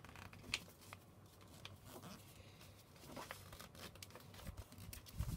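Faint, intermittent rustling and crinkling of a sheet of paper being folded and pressed into creases by hand.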